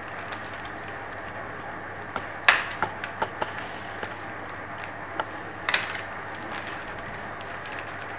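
A small handheld mini stapler snapping shut twice, about three seconds apart, stapling folded pleats in place, with fainter ticks of handling between the two staples.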